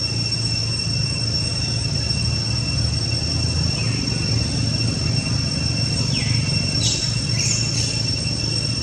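Forest insects droning, a steady high-pitched whine, over a low rumble. A few short falling chirps break in during the second half.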